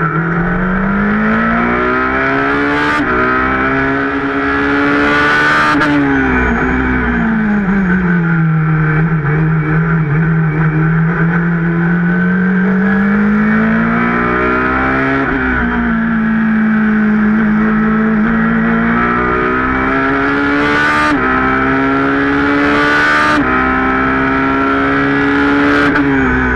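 In-car sound of a Ferrari 458 GT2's V8 racing engine under hard acceleration. Its note climbs, with a drop at each quick upshift, then falls away as the car slows for a corner about six seconds in, and climbs through the gears again. A few short, sharp cracks cut through.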